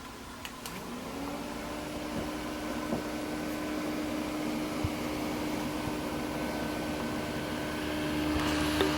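Small motor of a handheld USB mini fan: a click, then the motor spins up with a rising whine about a second in and settles into a steady hum, growing a little louder with more airy hiss near the end.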